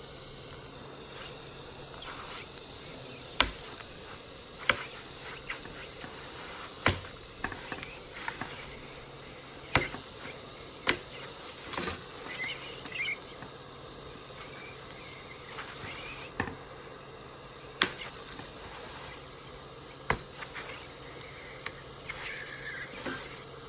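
Handheld heat gun running steadily, with sharp clicks and snaps every second or few as the laptop keyboard's metal plate is pried up off its heat-softened plastic rivets.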